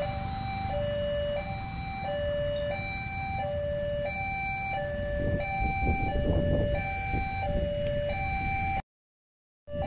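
Railway level-crossing warning alarm: an electronic two-tone chime alternating evenly between a lower and a higher note, each held about 0.7 s, over a low rumble. It cuts off abruptly for a moment near the end.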